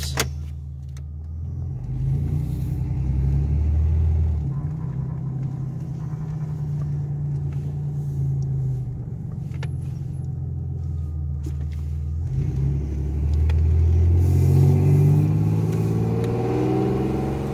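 Chevrolet Celebrity's 2.8-litre V6 engine running under acceleration, its pitch climbing and then falling back about four seconds in and again about twelve seconds in as the 440-T4 four-speed automatic shifts up. Second gear still slips.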